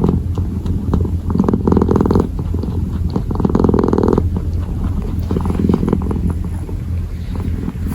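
A kitten purring close to the microphone: a steady low buzzing purr that swells and fades every second or so.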